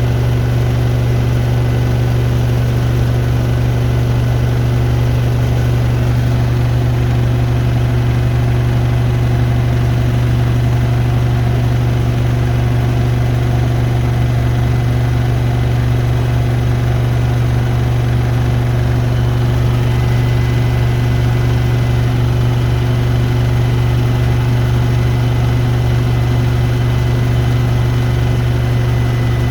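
Hoover Nextra Iconic and Beko WDER washing machines in their 1400 rpm final spin: a loud, steady hum of drums and motors held at full speed.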